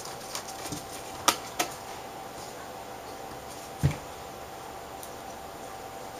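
Light scattered clicks and ticks of a small precision screwdriver working a screw into an LCD panel's steel frame, with a sharper click about a second in and a dull knock near four seconds, over a faint steady hum.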